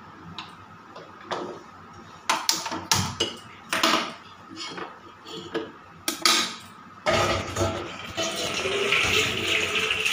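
Kitchen utensils knocking and clinking a few times. About two-thirds of the way in, a steady loud hiss begins and keeps on.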